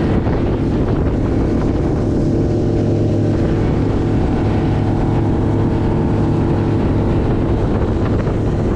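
Motorboat engine running steadily under way, a constant drone with water rushing past the hull.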